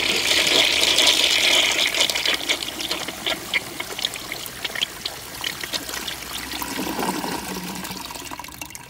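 A 1920s Kohler Selkirk toilet flushing with soapy water from its tank: water rushes into the bowl, loudest in the first two seconds, then eases into gurgling and trickling as the bowl drains and refills.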